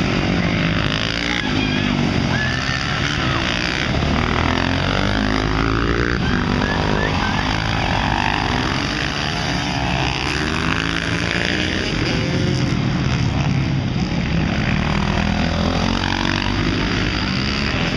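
Several supermoto motorcycles racing, their engines revving up and down, with many overlapping rising and falling pitches as the bikes accelerate and slow through the corners.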